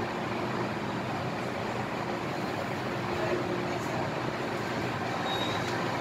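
Steady hum and air noise inside an MTR Island Line M-Train car with its doors closed, the train standing or only just moving off, with no rising motor whine yet.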